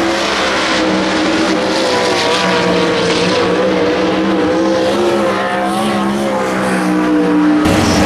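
Several sprint car engines running together, their tones wavering slightly as the revs shift. The sound changes abruptly near the end.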